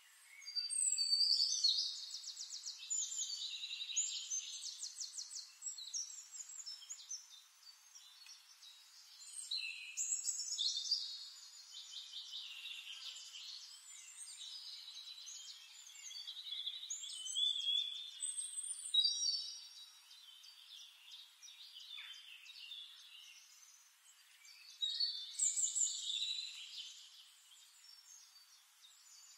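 A songbird singing in four long phrases of fast trills and sweeping whistles, with short pauses between them.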